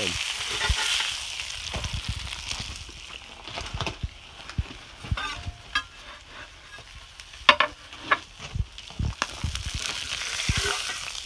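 Blackened salmon fillets sizzling in a cast-iron skillet, loudest at the start and again near the end, with scattered clinks and scrapes of a spatula.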